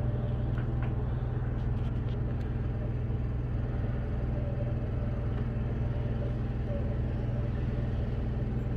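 A steady low mechanical hum, with an even drone that does not change.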